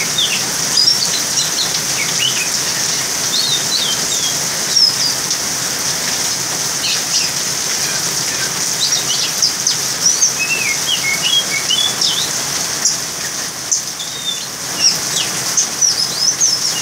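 Caged oriental magpie-robin (kacer) giving short, scattered whistles and chirps instead of full song, which its keeper puts down to the cold weather. Steady rain runs underneath, and the chirps come thickest near the middle and again near the end.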